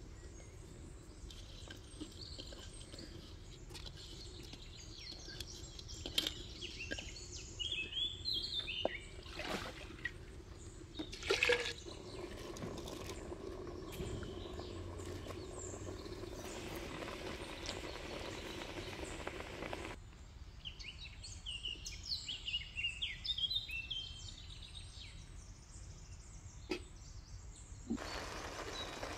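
Quiet pot-cooking sounds: liquid sloshing and a few clinks of a pot, lid and ladle, with small birds chirping in short bursts twice.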